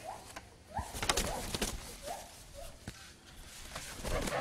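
Dogs whining in short rising squeaks, several times, with a few sharp knocks and clatter about a second in.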